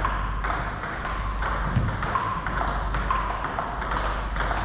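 Table tennis rally: the celluloid/plastic ball pinging off bats and the table, sharp clicks coming irregularly about every half second to a second over a steady background hum of the hall.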